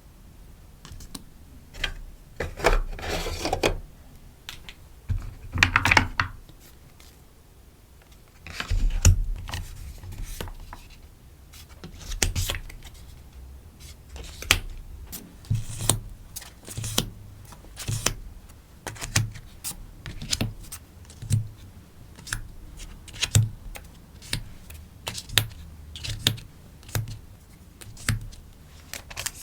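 Stickers and stationery being packed by hand: clicks and taps on the desk, with a couple of bursts of rustling packaging in the first few seconds, then a run of light taps about once a second.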